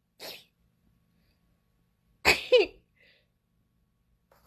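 A short, soft breathy sound, then about two seconds in a single loud, sudden sneeze with a falling pitch at its end.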